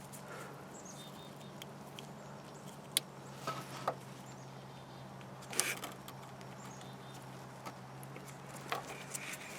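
Faint handling noise of gloved hands pushing a new license plate bulb into its wire socket: scattered small plastic clicks and rustles, the sharpest about three seconds in and again past five seconds, over a steady low hum.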